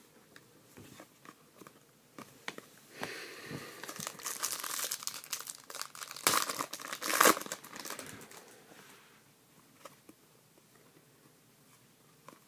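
Wrapper of a hockey trading card pack crinkling and tearing as it is opened by hand, starting about three seconds in, with two sharp crackles a second apart near its loudest. It trails off into faint clicks of the cards being handled.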